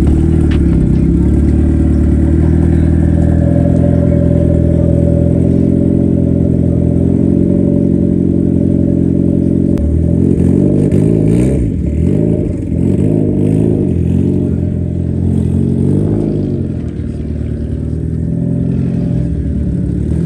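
Modified first-generation Mazda Miata's engine and exhaust running steadily for about ten seconds, then revved up and down several times as the car moves off.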